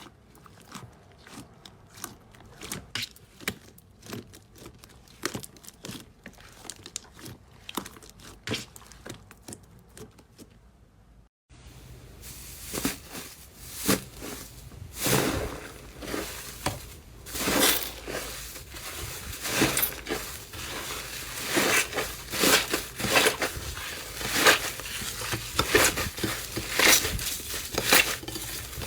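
Slime being handled and squeezed, a dense run of small crackling clicks and pops. About eleven seconds in there is a hard cut, and after it the crackling is louder and thicker.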